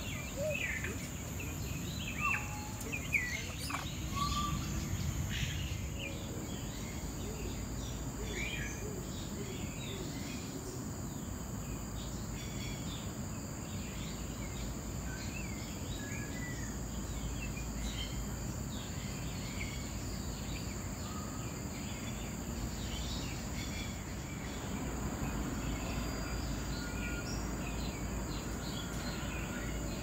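Birds chirping and calling, with a few louder short calls in the first few seconds and then scattered faint chirps, over a steady high-pitched drone and low background noise.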